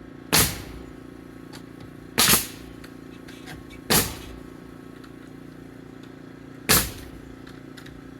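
Nail gun firing four single nails into lumber, each a sharp crack a second or two apart, over a faint steady low hum.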